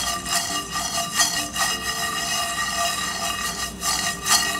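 Peanuts, sesame and coriander seeds rattling and scraping across a dry non-stick pan as it is tossed, in quick irregular scrapes: the seeds are being dry-roasted without oil.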